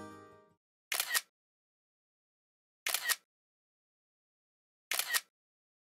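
Camera shutter sound effect clicking three times, about two seconds apart, each a quick double click. The tail of a guitar music track fades out just before the first one.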